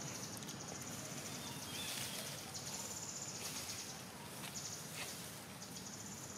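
Outdoor forest ambience: a high, finely pulsing insect buzz that starts and stops several times over a low steady background hiss, with faint bird chirps about two seconds in.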